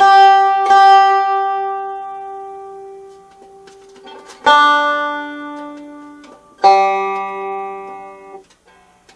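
Open guitar strings picked four times, each note ringing out and fading slowly, the last two lower. The string now rings clean and loud, without the earlier funny noise, after its too-tight bone nut slot was widened.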